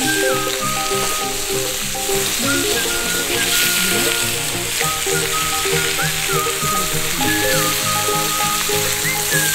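Pork belly and green onions sizzling in a pan held over a wood fire, with background music playing over it.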